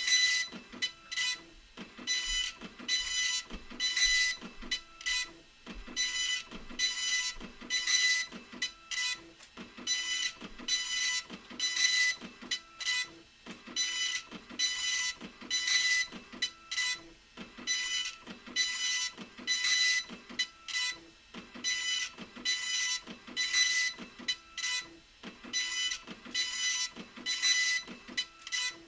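Epson LQ2550 24-pin dot-matrix printer printing, its print head buzzing across the page in rapid, repeated passes with short pauses between them.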